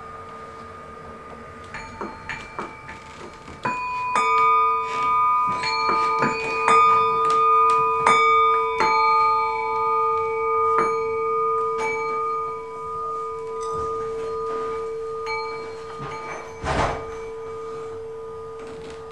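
Live percussion of struck metal chimes: a few light strikes about two seconds in, then a denser run of strikes from about four seconds, their clear tones ringing on and overlapping over a steady low ringing tone. A single dull thump sounds near the end.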